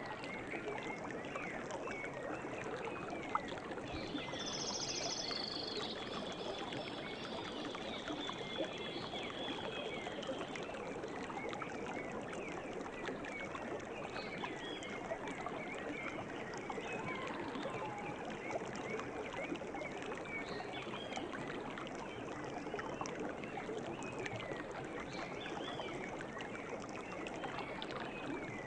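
River water flowing steadily, with small birds chirping over it. About four seconds in, a bird gives a high call followed by a steady trill that lasts several seconds.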